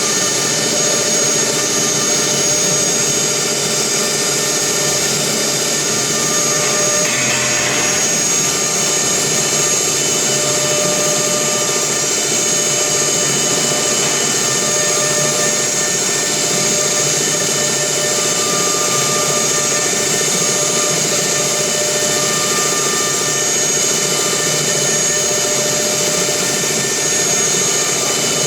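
CNC router spindle running with a steady high whine over a mechanical hum, with a brief rougher, noisier patch about seven seconds in.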